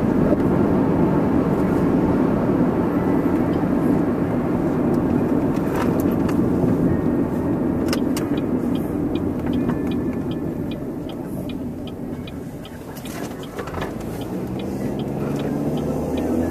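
Inside a moving car: steady tyre and road rumble with the engine running, easing off about two-thirds of the way through, then the engine note rising as the car speeds up again. A regular ticking, about two ticks a second, runs through the second half.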